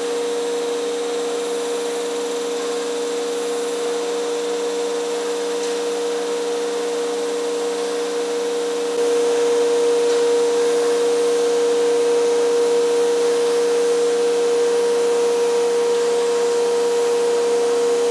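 CNC router spindle running with a steady hum as it cuts a melamine sheet, with dust extraction drawing through the dust shoe. It gets louder about halfway through.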